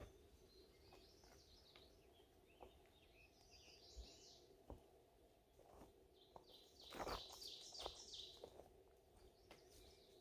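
Faint songbird singing in several warbling phrases high in pitch, the loudest about two thirds of the way in, with a few light scattered taps and a faint steady hum underneath.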